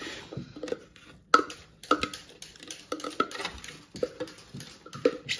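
Kitchenware being handled on a counter: irregular clinks and knocks of dishes and utensils, the sharpest about a second in.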